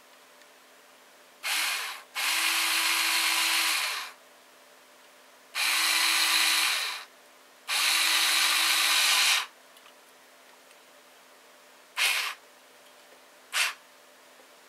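Electric drill driving small screws into a brass differential cover on an RC crawler axle: four short runs of the motor, each up to about two seconds, then two brief blips near the end.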